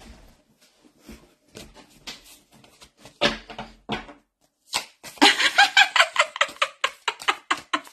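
A woman laughing: soft, broken laughs and faint clicks at first, then a loud burst of rapid laughter through the last three seconds.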